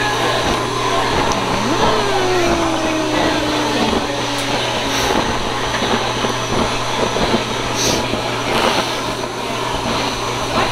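Build-A-Bear stuffing machine's blower running steadily with a constant hum, blowing fluffy stuffing through the nozzle into a plush bear while the foot pedal is held down.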